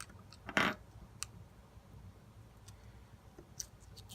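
Scattered light clicks and ticks of tweezers against the opened iPhone while the battery's adhesive strips are being worked loose, with one louder brief noise about half a second in.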